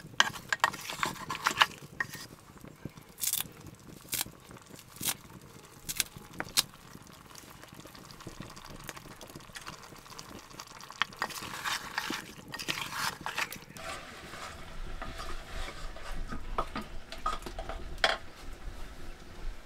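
A spoon stirring and scraping mutton curry in an open pressure cooker, clinking sharply against the pot about once a second for the first several seconds, then only now and then.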